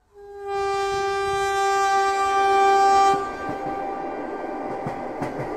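A train horn sounds one long steady note for about three seconds, then gives way to the rumble of the moving train heard inside the carriage.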